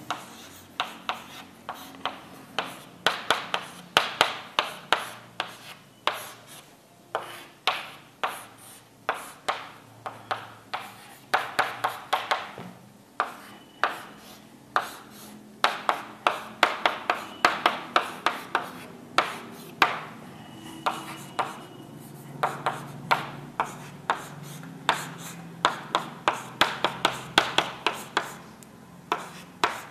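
Pen strokes and taps of hand writing or drawing: quick clusters of sharp clicks and short scratchy strokes, with brief pauses between bursts.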